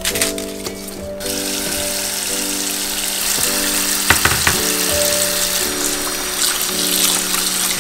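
Tap water running into a steel bowl of cut young napa cabbage leaves, starting about a second in, with a few splashes as a hand stirs the leaves. Background music plays throughout.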